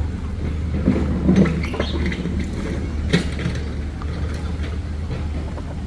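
Heavy diesel machinery running steadily with a low hum, with scattered clanks and one sharp knock about three seconds in.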